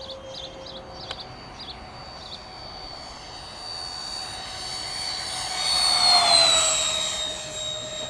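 Twin 70 mm electric ducted fans of an RC Boeing 737 MAX 8 model making a fast low pass. The whine swells and is loudest about six seconds in, then drops in pitch as the model flies past and climbs away.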